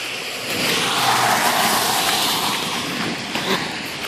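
A car passing on wet, slushy pavement: the hiss of its tyres swells about half a second in, is loudest through the middle, and fades toward the end.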